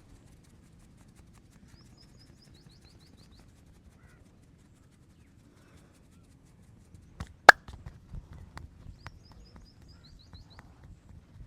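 A single loud, sharp clap of hands from the massage, followed by lighter, irregular taps and pats of hands on the body. A bird sings the same short phrase of high notes twice in the background.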